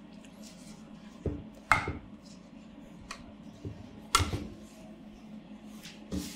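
Stainless steel ice cream maker bowl and spatula knocking and scraping against a metal basin as thick, freshly churned chocolate ice cream is emptied out. About four short knocks and scrapes, the loudest just before two seconds in and just after four seconds in.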